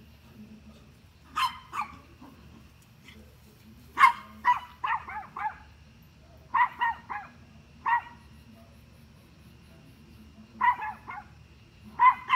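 Small dog barking at a deer: high, sharp barks in quick bursts of two to four, about fifteen in all, with short pauses between the bursts.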